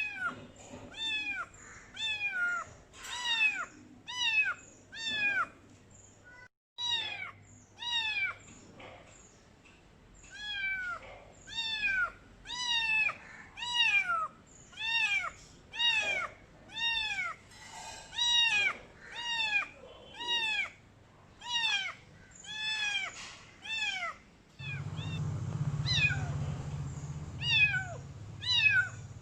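Khao Manee kitten meowing loudly and repeatedly: short, high cries, each falling in pitch, about one a second. Near the end the meows stop for a few seconds under a low, steady rumble.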